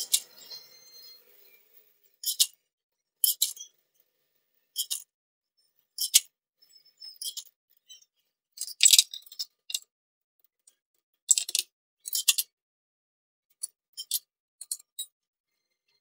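Ghee sputtering under an aloo paratha on a hot nonstick tawa: short, sharp crackles at irregular intervals about every second.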